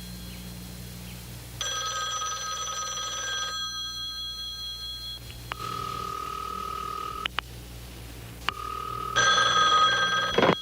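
Telephone bell ringing in two bursts, one about a second and a half in and another near the end, with a steady tone broken by a few sharp clicks in between. This is the incoming call that is answered right afterwards.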